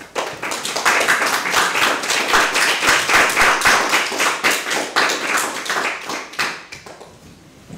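A small audience applauding: many hands clapping together at once, fading out near the end.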